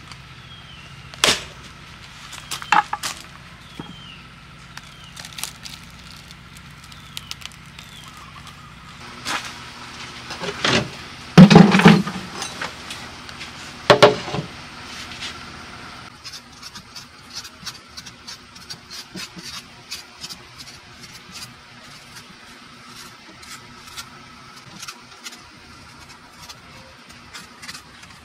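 Machete blade striking a husked young coconut on a wooden chopping block, a few separate chops, the loudest about halfway through. Lighter clicks and taps follow as the split coconut is handled.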